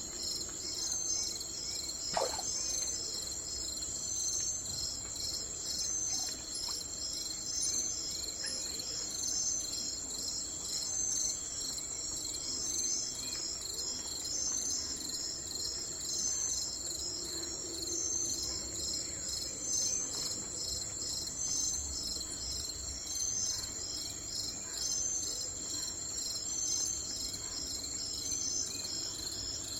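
Chorus of crickets trilling steadily, a high, continuous shrilling that swells in even pulses about once a second. About two seconds in, a single short whistle falls sharply in pitch.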